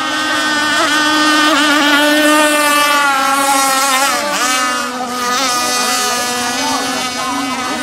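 Small two-stroke petrol engines of RC racing boats at high revs, a steady high-pitched whine. More than one engine seems to be heard, and the pitch wavers, dipping and climbing again several times.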